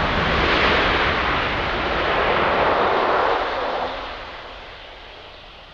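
Jet engine noise of a Boeing 757 airliner, loud and steady at first, then fading away over the last couple of seconds.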